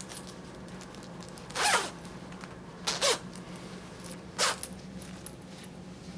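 Zipper of a grey zip-up hoodie being pulled, three short quick zips about a second and a half apart.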